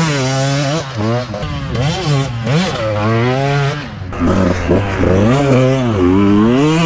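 Two-stroke Husqvarna motocross bike engine revving up and down again and again as the throttle is opened and closed. About four seconds in the sound changes abruptly to a closer, louder run of the same revving.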